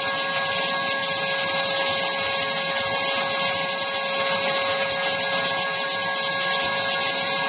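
Airbrush spray-tan machine running steadily, a motor whine under the hiss of the spray gun misting tanning solution.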